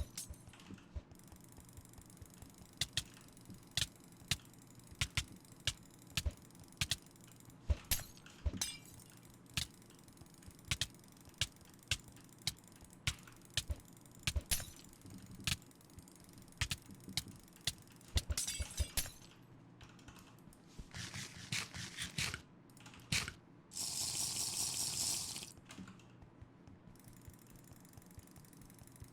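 Computer mouse buttons clicking: sharp single and double clicks at irregular intervals, about one or two a second. Later the ticking comes faster, and then there is a rushing noise of a second or so.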